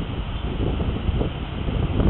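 Strong, gusty wind of about 35 mph buffeting the microphone: a loud low rumble that swells and drops with the gusts.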